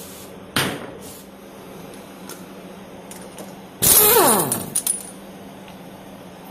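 Impact wrench breaking loose the front axle nut: a sharp metallic clank, then about a second of loud hammering that winds down with a falling whine as the tool spins down.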